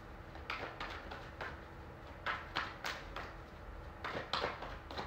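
A tarot deck shuffled by hand, cards dropping from one hand into the other: a faint, uneven string of soft card slaps and swishes, a few each second.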